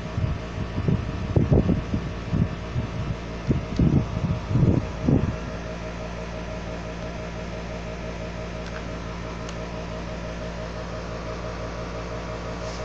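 A steady mechanical hum throughout. Low, irregular thumps come through it during the first five seconds, then stop.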